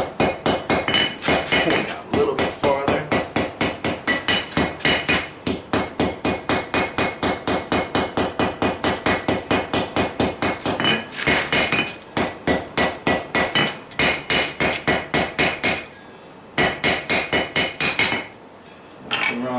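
Hand hammer forging a knife blade on a cast-iron Vulcan 90-pound anvil: rapid, even blows, about three or four a second, with a metallic ring. It stops briefly a couple of times, with longer pauses near the end.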